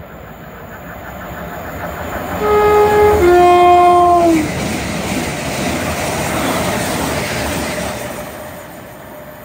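Class 387 Electrostar electric multiple unit running through the station without stopping, sounding its two-tone horn about two and a half seconds in: a short higher note, then a longer lower note that sags as it ends. The rush of the passing train swells around the horn and dies away near the end.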